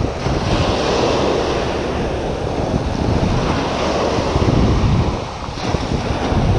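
Small surf waves breaking and washing up the sand close by, with wind rumbling on the microphone. The wash eases briefly about five seconds in, then the next wave comes in.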